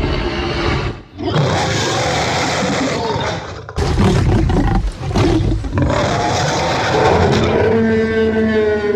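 Movie dinosaur roar sound effects: several loud, rough roars in a row, separated by short breaks. The last one, near the end, carries a clear pitch that slowly falls.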